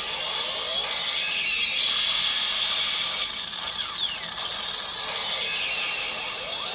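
Henshin (transformation) sound effect of a Decadriver-style belt: a continuous whirring, ratchet-like mechanical noise, with a falling sweep about four seconds in and a rising sweep near the end.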